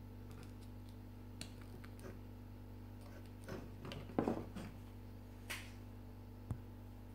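Small clicks and light plastic-and-metal clatter of a battery being handled and connected to a toy's sound circuit board. The busiest clatter is about four seconds in, with a couple of single sharper ticks after it, over a steady low hum.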